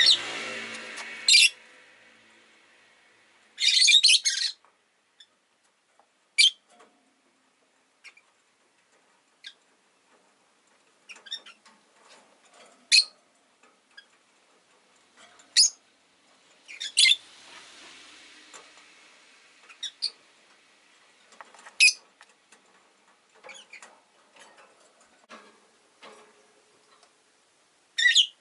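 Rosy-faced lovebirds giving short, shrill chirps, one at a time every few seconds, with a longer burst of calls about four seconds in. Faint clicks sound between the calls.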